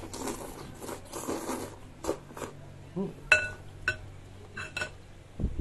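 Broth slurped from a spoon, then chewing with a few short clinks of a spoon against a ceramic bowl, one of them ringing briefly.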